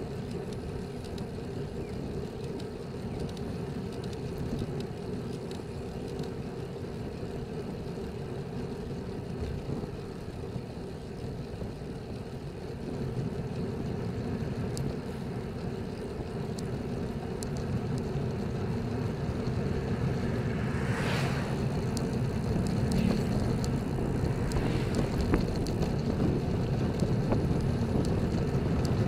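Wind rushing over a bike-mounted Cycliq camera's microphone, with tyre and road noise, while cycling at about 23–25 km/h. It grows louder in the second half, and a brief hiss swells and fades about two-thirds of the way through.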